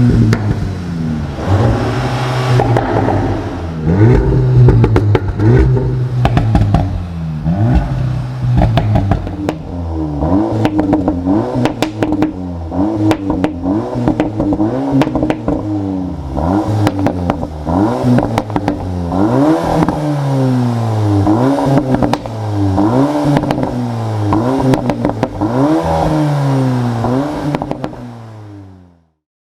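Exhaust of a Volkswagen 2.0-litre turbocharged four-cylinder performance car, its revs rising and falling again and again, with sharp pops and crackles scattered through; the sound fades out near the end.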